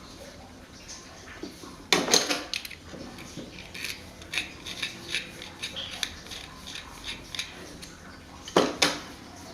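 Metal parts clattering and clinking as they are handled: two loud clattering knocks, about two seconds in and near the end, with lighter clicks and taps between them.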